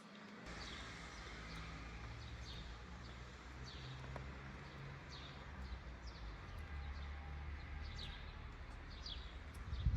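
A bird chirping again and again in short downward-sliding notes, over a steady low rumble that swells and then cuts off abruptly at the very end.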